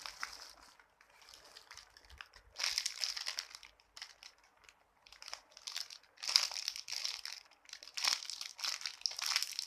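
Crinkling and rustling in several short bouts, about 2.5, 5, 6 and 8 seconds in, as squishy toys are handled.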